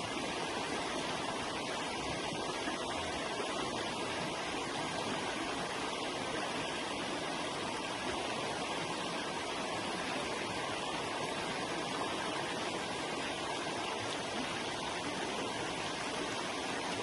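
River water flowing, a steady, even rushing sound.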